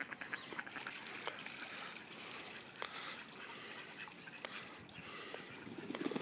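Mallard pond: steady trickling water with small splashes and clicks as ducks move on the surface. Just before the end, a drake flaps its wings on the water in a short, louder flurry.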